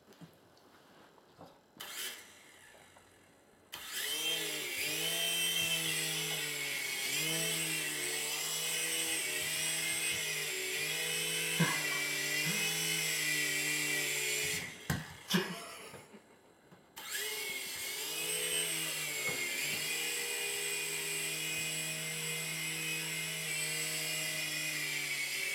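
Toy helicopter's small electric motor and rotor whirring, its pitch wavering up and down. It starts a few seconds in, cuts off suddenly after about ten seconds, and starts again a couple of seconds later, with a few short knocks.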